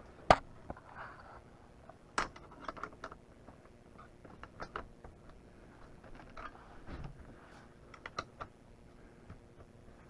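Irregular light clicks and knocks of hands working on the boat stand's fittings, with a sharp knock just after the start and another about two seconds in.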